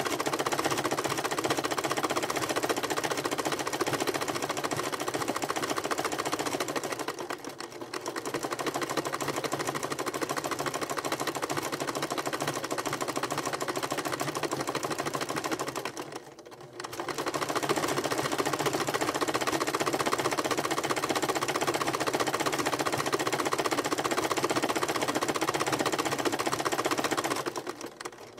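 Electric sewing machine running at speed, stitching a coil of fabric-wrapped rope into a bowl base. The stitching stops briefly about a quarter of the way in, again just past halfway, and at the end.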